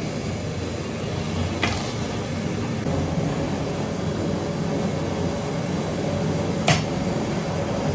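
Steady low roar of a large LPG gas burner firing under a big cooking pot, with two short sharp knocks, one about two seconds in and one near the end.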